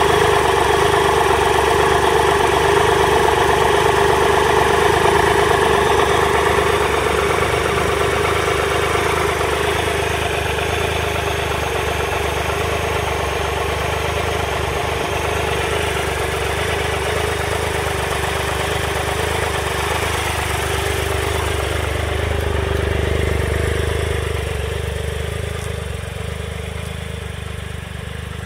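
Triumph Tiger Explorer's 1215 cc three-cylinder engine idling steadily in neutral. It grows gradually quieter over the second half.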